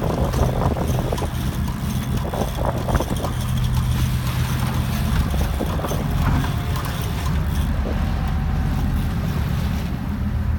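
A boat's engine runs steadily with a constant low hum, over a rushing of wind and water as the boat moves.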